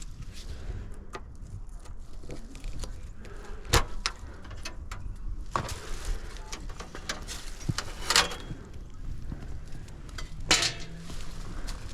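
Scattered clicks, knocks and clatters of hand work, with the strongest knocks about four, eight and ten and a half seconds in, over a steady low hum.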